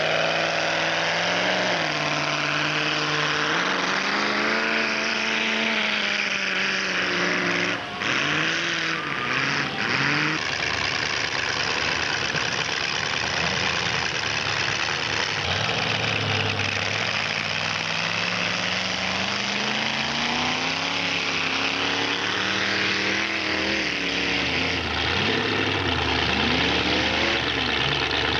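Modified four-wheel-drive mud-run truck engines revving hard through a mud pit, the pitch climbing and falling again and again with the throttle. There is a short break about eight seconds in.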